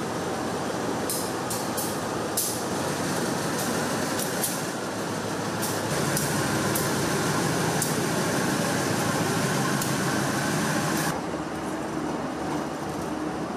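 Diesel locomotive and passenger train at a station platform: steady engine and rolling-stock noise, with a run of sharp clicks in the first half and the low rumble growing louder about halfway through as the cars move past.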